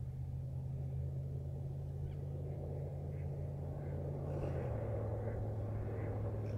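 A steady low engine drone that drops slightly in pitch about two-thirds of the way through, with faint bird calls repeating over it from about two seconds in.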